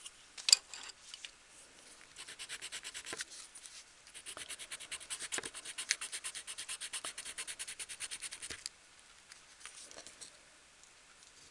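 Coloured pencil scratching on card in quick, even back-and-forth strokes that stop about three-quarters of the way through. A single sharp tap sounds about half a second in.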